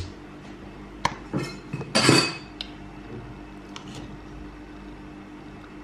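Metal spoon knocking and scraping against the side of a metal cooking pot while scooping cooked rice and beans: a few clinks about a second in, the loudest scrape about two seconds in, then a few light ticks. A faint steady hum runs behind.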